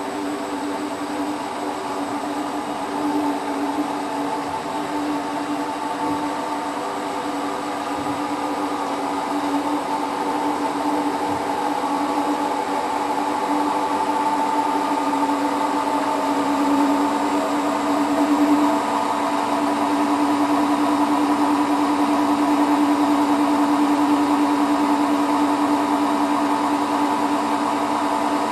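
Hotpoint WT960 washing machine on its final fast spin: a steady motor whine and drum hum, gradually getting louder, with one whine edging slightly up in pitch.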